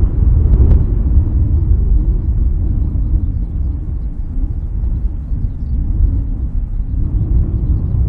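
Loud, gusty low rumble of wind buffeting the microphone, mixed with the distant idling jet engines of a Boeing 737-800 taxiing to its stand.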